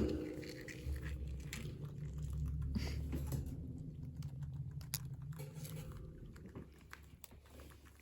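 Chewing on a crunchy snack: irregular crunches and bites over a low steady hum, getting quieter toward the end.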